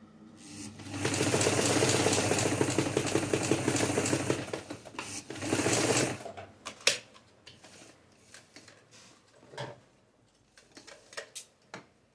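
Electric domestic sewing machine stitching at speed for about three and a half seconds, stopping, then running again in a short burst. After it stops come a sharp click and a few scattered light clicks of handling.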